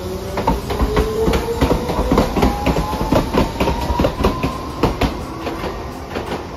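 Hiroshima Electric Railway 3900-series articulated tram pulling away: its traction motors whine with two tones that rise steadily in pitch as it gains speed, over a rapid run of sharp clicks and clatter from the wheels on the rails.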